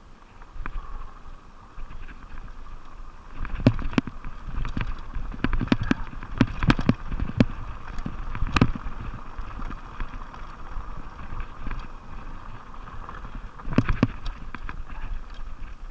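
Plus-size mountain bike (Fuji Beartooth 27.5+) descending fast on a dirt trail: steady tyre rumble and wind noise, with sharp knocks and rattles from the bike jolting over bumps, thickest in the middle stretch and again near the end.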